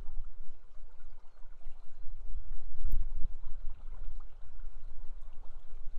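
River water rushing steadily, with a deep rumble underneath that swells about halfway through.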